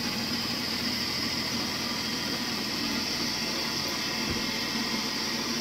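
Electric mini chopper's motor running steadily at full speed, its blade grinding peanuts into a coarse meal on the way to peanut butter.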